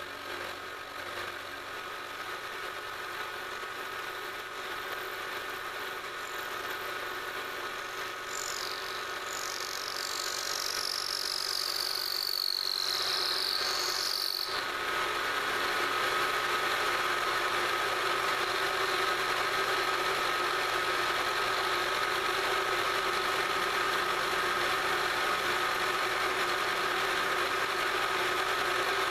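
Milling machine spindle running steadily while an end mill rough-cuts a pocket in aluminium plate. A wavering high squeal comes in about eight seconds in and lasts some six seconds.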